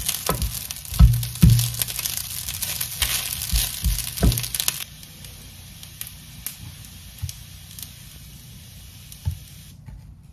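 Rice patties sizzling in oil in a nonstick frying pan, with a spatula knocking against the pan several times as they are turned and lifted. About five seconds in the sizzle cuts off, and a few soft taps follow as the patties are set down on a wooden cutting board.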